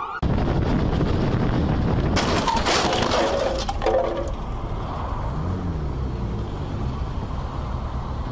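Road and engine noise picked up by a vehicle-mounted camera, broken about two seconds in by a crash: a sudden impact followed by scraping and clinking debris and breaking glass for a second or two, then the road and engine noise carries on.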